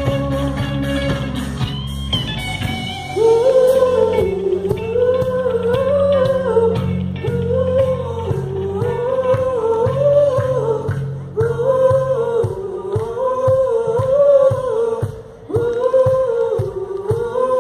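Live rock band playing through outdoor PA speakers during a soundcheck, with electric guitars and bass. A held chord opens, then from about three seconds in a short sung melodic phrase repeats over and over.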